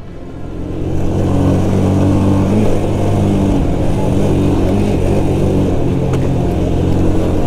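Spark SP200R-28 motorcycle's 198 cc four-stroke engine running under way. It is quieter at first, picks up again within about a second, then runs steadily.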